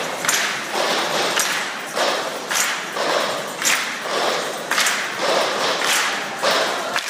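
A large group doing body percussion in unison: hand claps and thuds in a steady repeating rhythm, with a sharp accent about once a second.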